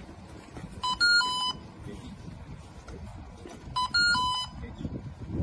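Electronic beeping from a handheld forehead thermometer-style device: a short three-note figure, low-high-low with the last note held, sounding twice about three seconds apart.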